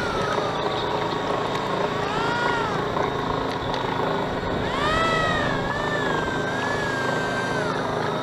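Motor of a radio-controlled model lifeboat running, heard from on board. Its whine rises and falls in pitch several times over a steady rushing noise.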